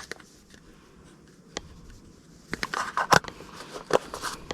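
Small sharp clicks, taps and rustling from handling fishing gear and a bait container, with a single click about one and a half seconds in and a busy run of clicks and handling noise from about two and a half seconds in.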